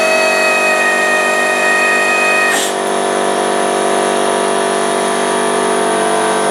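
MDP-200P pneumatic peristaltic pump running steadily on compressed air, a loud whine made of many steady tones. It pumps liquid through its silicone tube. About two and a half seconds in there is a brief hiss, after which the higher tones thin out.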